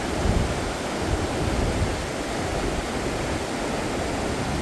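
Steady rush of a river in flood, swollen after days of heavy rain, with wind buffeting the microphone in low, uneven gusts.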